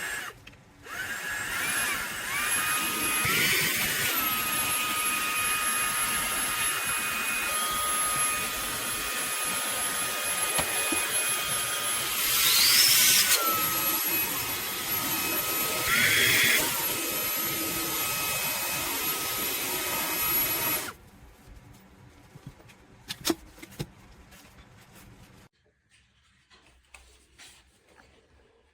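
Fanttik Slim V8 Apex cordless handheld vacuum spinning up and running with a high, steady whine. Its pitch rises briefly three times, once with a louder rush of air. It switches off about two-thirds of the way through, leaving a few light clicks and knocks.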